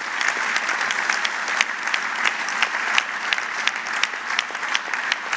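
A large audience applauding: many hands clapping steadily in a dense, even patter.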